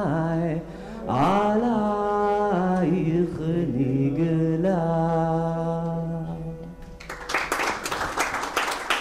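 A man singing solo and unaccompanied into a microphone, with ornamented, sliding turns, ending on a long held note. Audience applause breaks out about seven seconds in.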